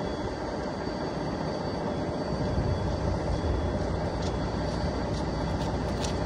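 Footsteps crunching on icy, snow-crusted pavement, coming closer and getting louder from about four seconds in, over a steady low rumble.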